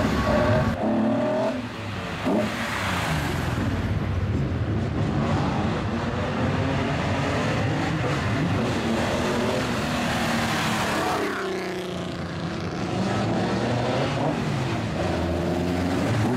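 Lowered old Japanese cars with straight-pipe exhausts revving hard and driving past one after another, the loud exhaust rising and falling in pitch as they pass.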